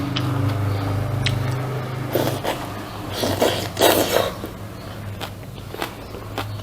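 Eating sounds: a person chewing and eating rice and pork soup, with scattered sharp clicks and two louder bursts of eating noise about two and three and a half seconds in, over a steady low hum.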